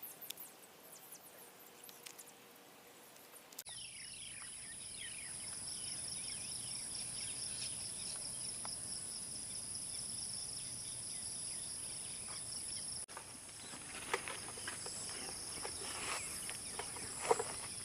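Insects droning in a steady, high chorus that starts abruptly about four seconds in, with short high chirps over it.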